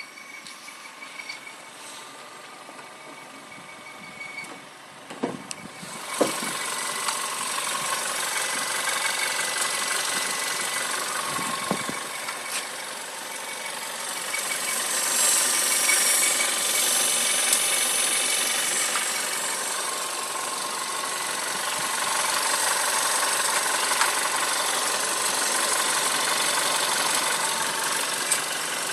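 A car squeaking while it runs, a thin high squeak over steady engine and road noise; the noise grows louder about six seconds in.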